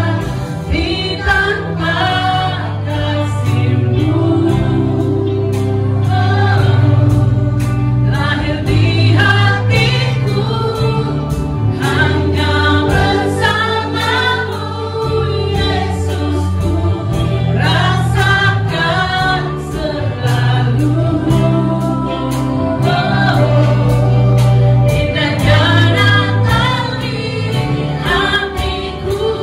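Live gospel worship song: a church band with drum kit, bass and electric guitar plays a steady beat under a group of voices singing together.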